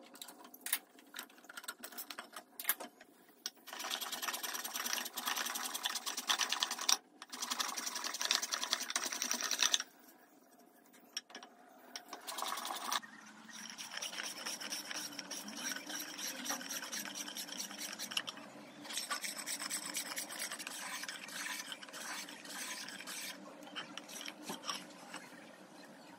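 Wood rasp scraping along a teak walking stick as it is shaped. The scraping runs for about six seconds, stops briefly, then goes on more evenly for about ten seconds.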